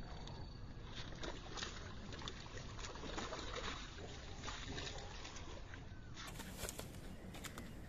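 Shallow river water sloshing and splashing as a large goonch catfish is hauled out by hand on a fishing line, then scuffing and knocking on the wet muddy bank as it is carried off, with a steady rush of outdoor noise underneath.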